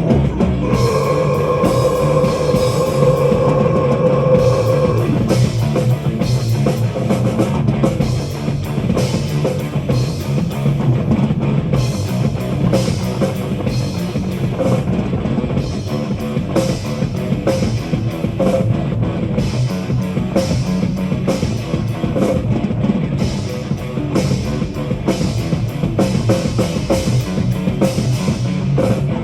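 A live heavy metal band plays an instrumental passage with distorted electric guitars, bass and a full drum kit. One note is held for about the first five seconds, then a driving beat of drum and cymbal hits carries on.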